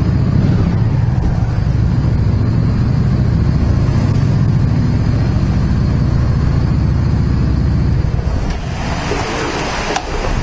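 Yamaha Drag Star 650's air-cooled V-twin running at low speed and idle, a steady, fast-pulsing low rumble. About eight seconds in the rumble falls away and a rustling hiss takes over.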